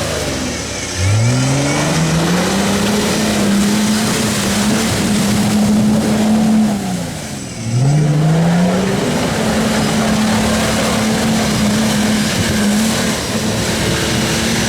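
Off-road 4x4 engine revved hard twice: each time it climbs steeply to high revs and is held there for several seconds, with a brief drop off the throttle in between. The vehicle is trying to drive itself out of the spot where it is stuck.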